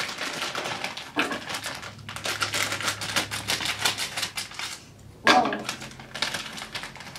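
Crinkly plastic Hi-Chew candy bag being handled and cut open with scissors: dense runs of rapid crackling. A short exclaimed "whoa" about five seconds in.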